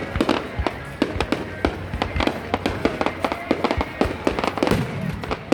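Fireworks going off: a rapid, irregular series of sharp bangs and crackles, several a second, with music playing underneath.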